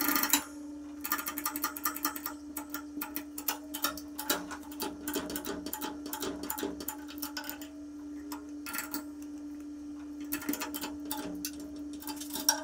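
Bottle jack on a hydraulic shop press being pumped by hand, its handle and pump clicking and rattling in irregular runs as the ram bends a steel strip, over a steady hum.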